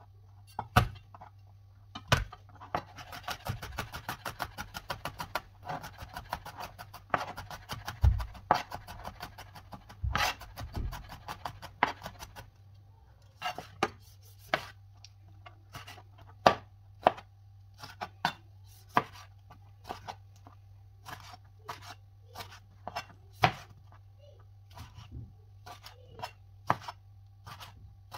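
Kitchen knife chopping food on a cutting board. It starts with a fast run of close, even chops for about ten seconds, then goes on with slower single cuts about once a second.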